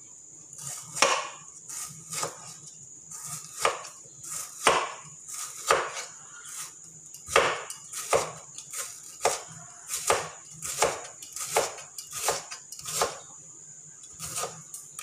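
Knife chopping on a wooden cutting board: about twenty firm, slightly irregular strokes at one to two a second, over a steady high hiss.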